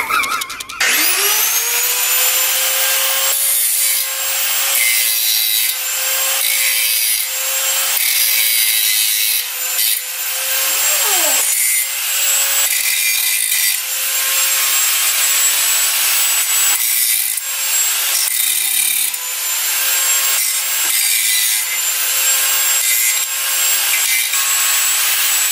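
Electric angle grinder spinning up about a second in, then grinding with a steady whine and harsh hiss that dips now and then as it is eased off and pressed back into the work.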